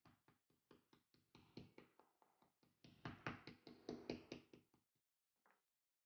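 Quiet, rapid pounding of a metal meat tenderizer mallet on a thin slice of raw pork loin on a wooden cutting board, about five blows a second, stopping about five seconds in with one last light blow. The mallet's textured face is tenderizing and flattening the cutlet.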